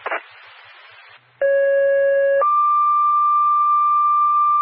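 Two-tone sequential dispatch page over a fire radio channel, after a moment of radio static: a lower, buzzier tone for about a second, then a higher steady tone held for about three seconds. It is the alert that precedes a dispatcher's announcement to fire units.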